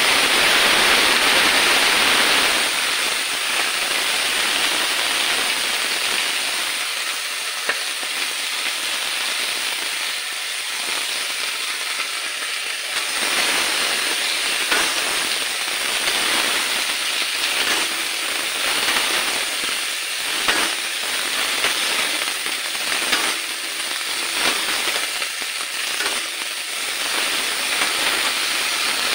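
Potato and cauliflower pieces sizzling in hot oil in a wok, stir-fried with a spatula that scrapes and knocks against the pan. The sizzle is loudest in the first couple of seconds, and the scrapes and knocks come more often in the second half.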